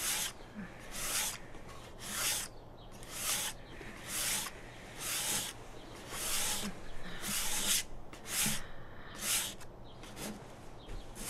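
Rhythmic rasping strokes of a hand tool worked back and forth at a work table, about one stroke a second, like hand sanding.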